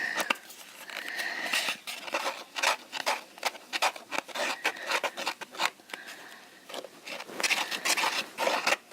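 Slime mixture of glue, contact lens solution and baking soda being stirred in a bowl: irregular scraping and tapping of the utensil against the bowl.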